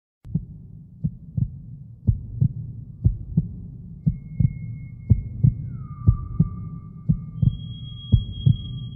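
Heartbeat sound effect: paired lub-dub thumps about once a second over a low rumble. High held tones join from about four seconds in, one sliding down in pitch before it settles.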